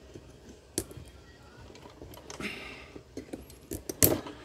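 Pliers prying spot-welded nickel strips off 18650 lithium-ion cells: scattered sharp clicks and snaps with a brief scraping tear a little past two seconds in, and the loudest snap about four seconds in.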